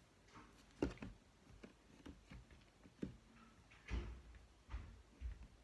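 Faint, irregular small clicks and a few soft low thumps in a quiet room: small movement noises from a person shifting in front of the microphone.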